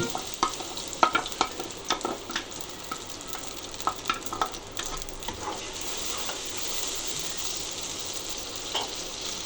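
Ground tomatoes frying and sizzling in a pan while being stirred, a spoon scraping and knocking against the pan several times in the first half, then a steadier sizzle.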